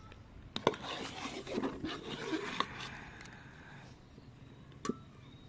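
Metal spatula scraping and clinking against the inside of an aluminium pot while stirring thick saffron rice pudding, with a few sharp clicks in the first second. A single metallic clink with a brief ring near the end.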